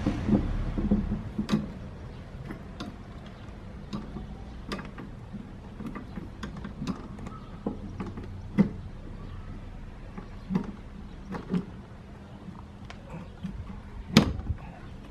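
Aluminium Givi Trekker Dolomiti side case clicking and knocking against the motorcycle's metal side-case rack as it is offered up and hooked on: scattered light clicks, with a louder knock near the end.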